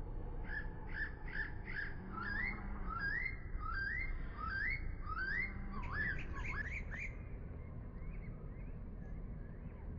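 A bird calling: a run of short, rising notes, about two a second, that stops about seven seconds in, over a steady low rumble.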